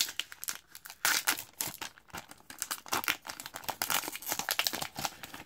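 Foil wrapper of an Upper Deck Tim Hortons Team Canada hockey card pack crinkling and tearing as it is ripped open and peeled back from the cards, a dense run of crackles.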